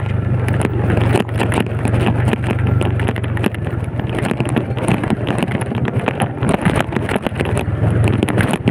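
Yamaha Vega underbone motorcycle's single-cylinder engine running as it rides a rough mountain road. Its hum drops in level about three and a half seconds in, under constant wind noise and knocks on the microphone.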